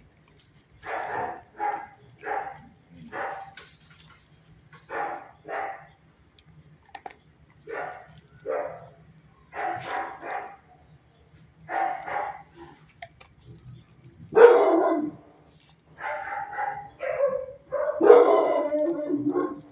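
Dogs in shelter kennels barking repeatedly: about twenty short barks in irregular clusters, with the loudest about fourteen seconds in and a run of barks near the end.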